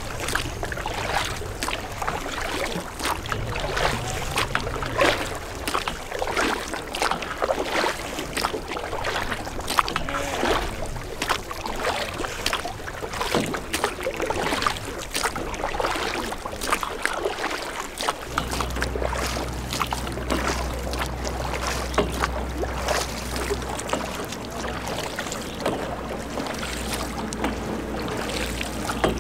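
Oars of a rowed river sampan dipping and splashing, with water lapping at the hull in irregular small splashes and knocks. A low steady rumble joins about two-thirds of the way through.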